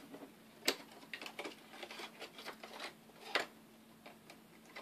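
Cardboard box and packaging being handled as the box is closed up: scattered rustles and light clicks, with two sharper knocks, one under a second in and one about three and a half seconds in.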